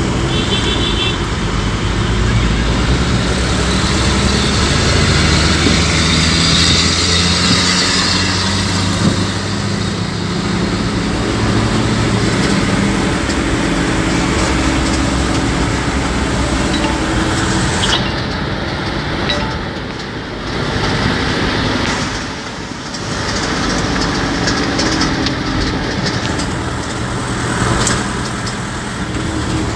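Engine and road noise heard inside a moving bus, a steady drone that rises and falls with the engine, with a few short high beeps in the first second.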